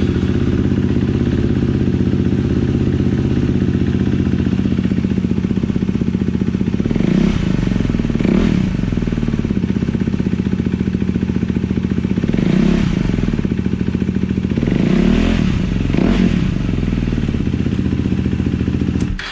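KTM Duke 390 single-cylinder engine idling loudly through an open, unbaffled exhaust, blipped up and back down about five times in short revs. It is switched off near the end.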